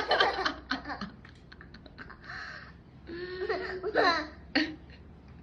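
Young children laughing and vocalising in high, pitch-gliding voices, in one spell at the start and another from about two to nearly five seconds in.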